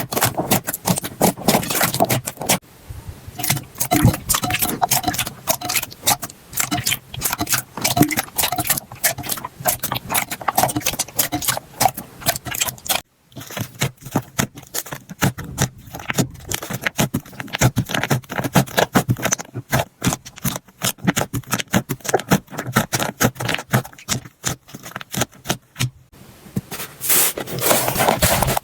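Slime being squeezed and worked by hand, making fast wet popping and crackling clicks. The sound cuts off briefly about halfway through, then the popping starts again.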